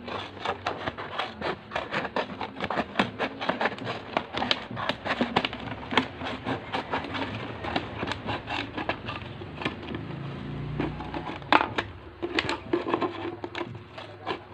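Small scissors snipping through a clear plastic bottle, a quick run of sharp crackling snips about three a second, with a short break about two-thirds of the way through.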